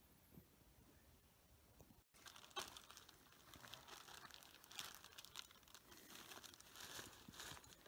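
Near silence for about two seconds, then faint, close rustling and crinkling with many small clicks: clothing being handled at the waist.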